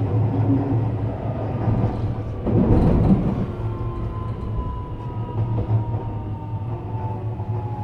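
JR West 321-series electric train standing at a station platform, its equipment giving a steady low hum. About two and a half seconds in there is a short rush of noise, and after it a thin whine that slowly falls in pitch.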